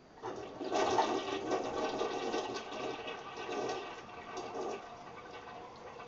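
Toilet flushing: a rush of water that starts suddenly just after the start, is loudest for the first two seconds or so, then eases off.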